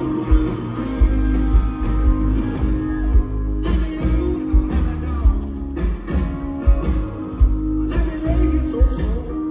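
Live rock band playing a slow song: electric guitar, bass and drums with a steady beat, and a man singing.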